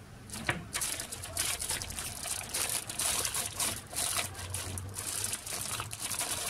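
Thin clear plastic packaging bag crinkling and crackling as it is handled in the hands, starting about a third of a second in.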